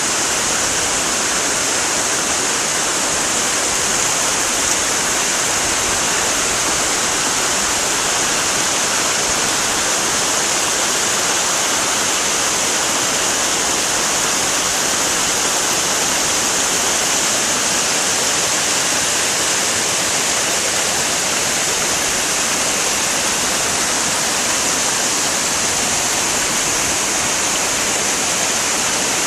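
Waterfall: a steady, unbroken rush of falling water, with a strong high hiss.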